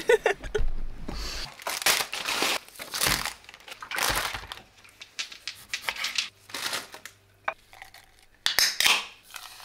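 Shopping being handled on a kitchen counter: packaging rustling and crinkling in irregular bursts, with scattered light knocks.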